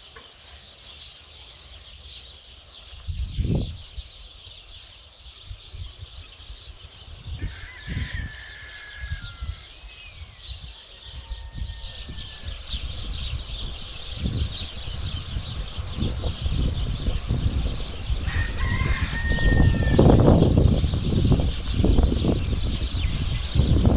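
A dense chorus of many small birds chirping continuously, with a rooster crowing twice, about seven seconds in and again near eighteen seconds. Bursts of low rumble come and go and grow louder toward the end.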